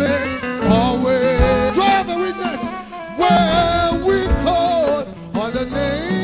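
A male gospel singer singing into a handheld microphone, his voice sliding between held notes, over amplified instrumental backing with a steady low line and occasional drum hits.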